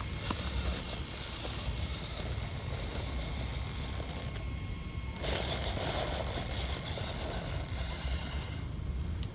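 Radio-controlled rock crawler on an Axial SCX10 chassis driving over loose broken stone: scattered clicks and knocks of stones under its tyres over a steady low rumble. There is a thin steady whine that stops near the end.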